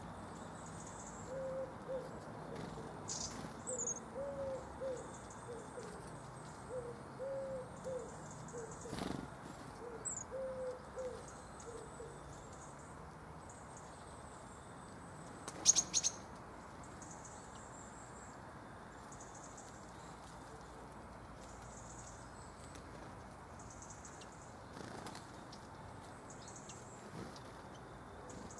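Birdsong: a pigeon cooing a repeated low phrase through the first dozen seconds, with faint high calls of small birds throughout. About 16 seconds in comes a short, sharp cluster of taps, the loudest sound here.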